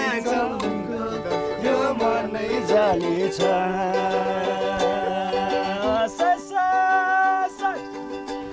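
Background music led by a plucked string instrument such as a ukulele, with a sung melody over sustained chords.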